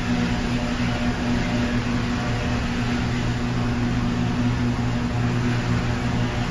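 Steady electrical machinery hum heard inside an overhead steel-mill crane's cab: a low drone with a steadier higher tone over a constant hiss, with no knocks or bangs.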